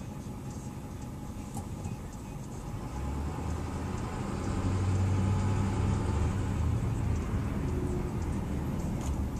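A 2009 Ford F350's 6.4-litre Power Stroke V8 diesel running, heard from inside the cab as a low drone that grows louder about three seconds in and stays up.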